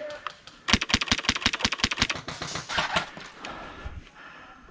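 Airsoft rifle firing a rapid full-auto burst, about ten shots a second for roughly a second and a half, starting under a second in; fainter clatter follows.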